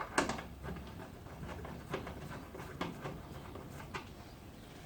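Faint, scattered small clicks and taps of screws being fitted back into the barbecue's steel frame by hand.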